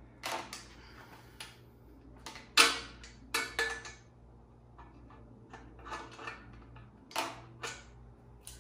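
An adjustable wrench and the nuts and plates of a threaded-rod headset press clinking as the nuts are backed off after pressing in a headset cup. The sound is a string of irregular metallic clicks and knocks, the loudest about two and a half seconds in.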